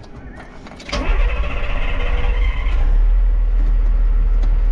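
Bucher Duro expedition truck's diesel engine pulling away from a standstill: a sudden rise about a second in, then a steady loud low drone, with a higher whirring for about two seconds as it sets off.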